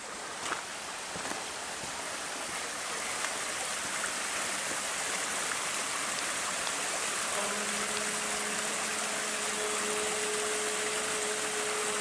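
Waterfall pouring into a rocky pool: a steady rush of water that grows gradually louder. A faint steady hum joins in about seven seconds in.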